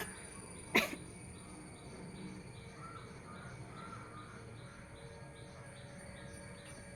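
Insects chirping in a steady pulse about twice a second over a constant high whine, with a single sharp click about a second in and a few faint chirps near the middle.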